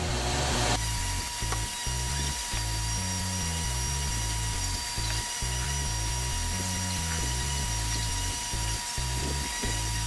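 Background music with a steady beat, over a steady high whine from a Snap-on PS134 air-conditioning service machine that starts about a second in as the machine pumps refrigerant gas out of the car's air-conditioning system.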